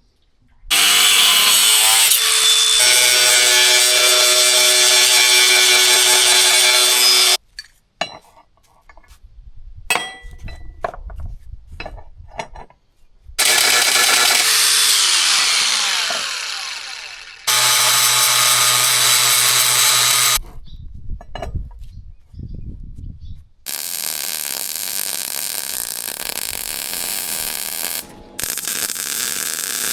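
A power tool running in several loud bursts, broken by irregular knocks and clatter. One burst winds down with a falling whine, and a steady machine hum runs through the last few seconds.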